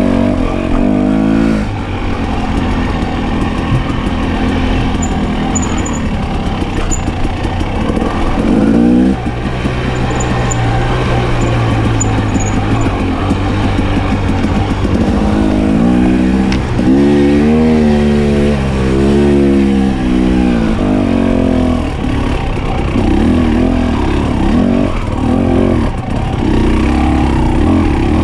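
Off-road motorcycle engine running under changing throttle as it is ridden along a dirt trail, its pitch climbing and falling, with a sharp rise about nine seconds in and a stretch of revs going up and down near the middle.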